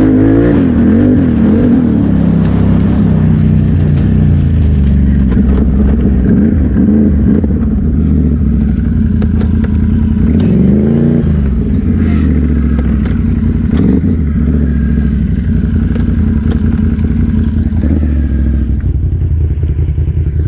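Can-Am Renegade XMR 1000R's V-twin engine through its newly fitted dual exhaust, under way on a gravel trail. The revs rise and fall over the first couple of seconds and dip and climb again about ten seconds in; otherwise it pulls steadily.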